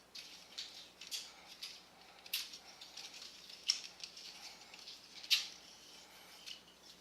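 Plastic parts of a Transformers Titans Return Astrotrain figure clicking and rubbing as it is handled and transformed by hand, with about five sharper clicks spread through the light rustling.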